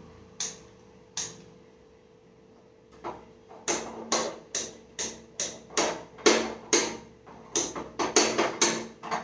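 Handheld kitchen gas lighter clicking repeatedly at a gas stove burner: two single clicks near the start, then a run of about two clicks a second from about three seconds in, quickening near the end. The burner does not light, which is put down to water having got onto it.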